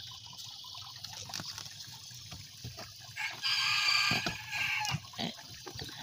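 A rooster crows once, a long high call about three seconds in, over faintly trickling water.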